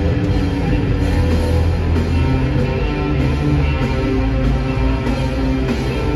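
Rock band playing live, with electric guitar and drum kit, loud and continuous.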